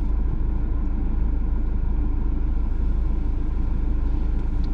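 Steady low rumble of a vehicle being driven, engine and road noise heard from inside the cab.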